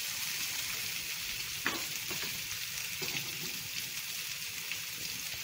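Pre-boiled diced potatoes frying in hot oil in a skillet: a steady sizzle, with one light knock about a second and a half in.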